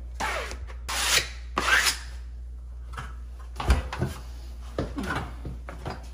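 Three short scraping rubs of a hand tool across grasscloth wallpaper at a corner, the loudest in the first two seconds, followed by a few light knocks and handling noises.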